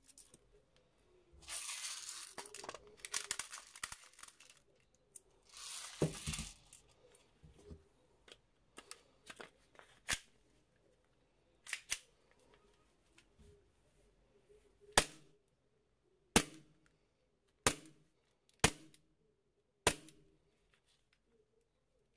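Gas hissing in two bursts as an airsoft gas blowback pistol's magazine is charged, followed by scattered metallic clicks and then five sharp pops about a second or so apart: the EMG Archon Type B gas blowback pistol cycling on gas.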